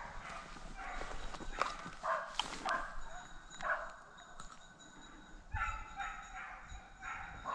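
Hunting hounds barking and baying faintly in a steady run of short barks, about two a second. There is a lull of a second or so in the middle, after which the barking picks up again.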